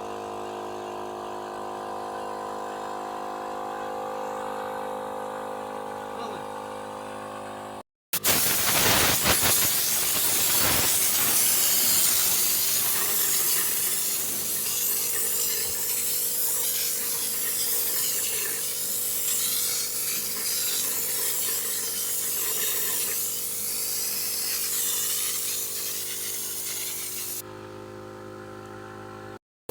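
Air compressor running with a steady hum. After a cut about eight seconds in, a loud, steady hiss of compressed air, as from a spray gun applying Neutrol, runs for most of the rest, then gives way to a quieter hum near the end.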